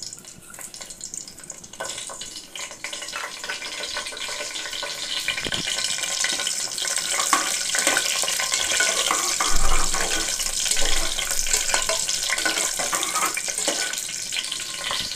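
Whole spices (bay leaves, cinnamon, cardamom, cloves) sizzling in hot oil and ghee in a pressure cooker, the sizzle growing louder after the first couple of seconds. A metal spatula scrapes and stirs against the pot.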